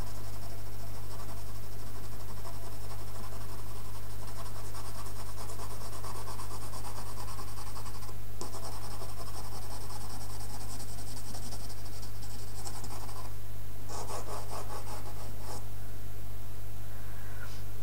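Coloured pencil shading on Pastelmat card: quick back-and-forth scratching strokes, with a short pause about eight seconds in, another just after thirteen seconds, then a patch of firmer strokes. A steady low hum runs underneath.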